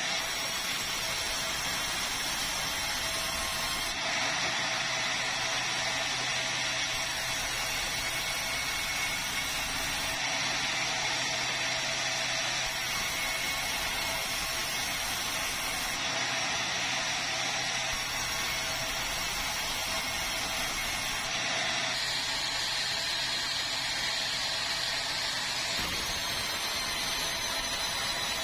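Band sawmill running, its blade sawing red meranti timber, with a steady, unbroken noise throughout.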